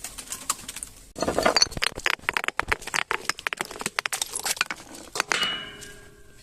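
Glass being crushed and broken: dense crunching and crackling with sharp clinks, growing louder just after a second in. Near the end a clear, ringing glass tone dies away.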